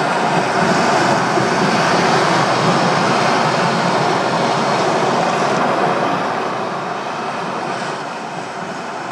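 Loud, steady rushing noise from a projection show's soundtrack over loudspeakers, fading away over the last few seconds.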